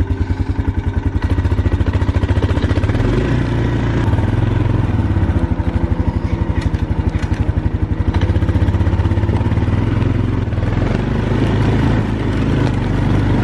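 Honda ATV's single-cylinder four-stroke engine running with an even low pulsing as the four-wheeler is ridden slowly, heard close up from the machine itself.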